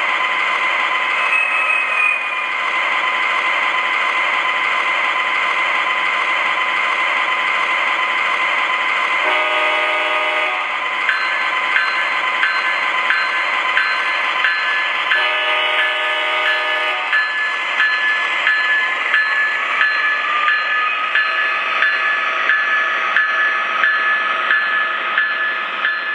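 MTH O gauge ES44AC model locomotive's Proto-Sound 3.0 diesel sound running steadily over the noise of its wheels on the track. The horn sounds twice, about ten and sixteen seconds in, and the bell rings steadily at about one and a half strokes a second from just after the first horn blast.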